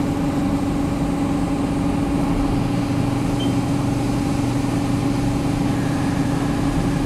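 Haas DT-1 CNC mill cutting an aluminium tension arm under flood coolant, with a slitting saw cutting a cable channel: a steady machine hum over the hiss and spatter of coolant, and a faint higher tone that comes in near the end.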